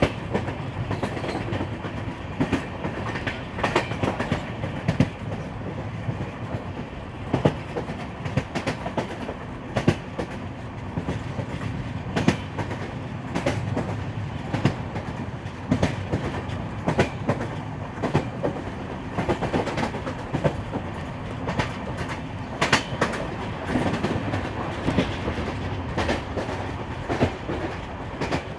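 Train running along the track: a steady rumble with frequent sharp clicks of the wheels over rail joints.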